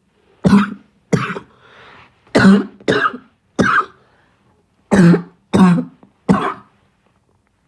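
A person coughing: eight sharp coughs in three quick runs of two, three and three.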